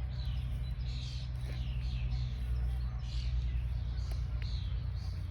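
Small songbirds chirping, short high notes repeated two or three times a second, over a steady low hum.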